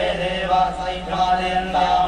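Hindu mantra chanting: a voice reciting in a steady, held, melodic chant, with a constant low hum underneath.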